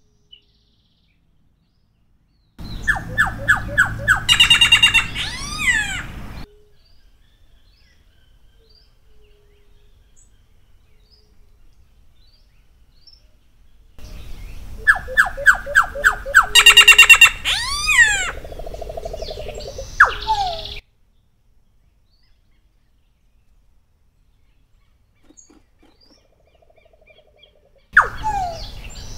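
Solitary black cacique (Cacicus solitarius) singing in three separate bouts: about 3 s in, about 14 s in, and one starting near the end. Each bout is a quick run of evenly spaced notes followed by swooping, gliding whistles, with near silence between bouts.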